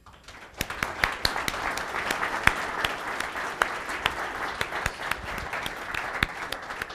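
Audience applauding: many hands clapping together, building up quickly in the first second and then holding steady.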